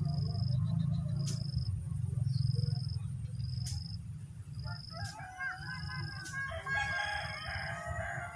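A rooster crowing, one long multi-part crow starting a little past the middle, over a steady low rumble and a short high note repeating about once a second.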